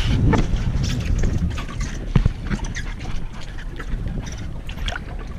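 Steady low rumble of a fishing boat at sea with wind buffeting the microphone, and scattered light knocks, the sharpest about two seconds in.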